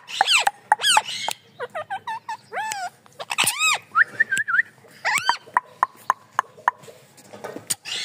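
Rose-ringed (Indian ringneck) parakeet calling: a string of short, sharp screeches that rise and fall in pitch, several in quick succession. The calls come thinner in the second half.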